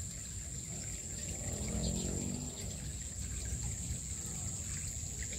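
Small stream trickling over rocks, a steady running-water hiss, with a constant high-pitched drone over it.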